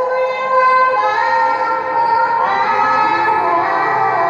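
A young female Quran reciter (qoriah) in melodic tilawah, singing in a high register. She holds long drawn-out notes that step up and down in pitch.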